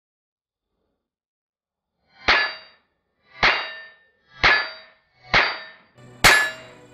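Five .22 LR shots from a Ruger Mark III 22/45 pistol, starting about two seconds in and spaced about a second apart. Each one is a sharp crack followed by a ringing clang at the same pitch, as from a steel target being hit. The trigger resets between shots during test-firing after its pre-travel screw was adjusted.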